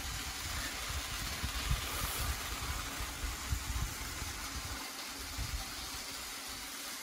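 Battery-powered motor and gears of a TrackMaster Bertram toy train engine running steadily with a low rumble.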